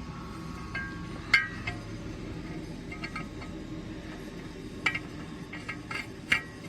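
Light metallic clinks and taps of small metal parts being handled, about a dozen scattered through, several with a short ring, the sharpest about a second and a half in and a cluster in the last two seconds.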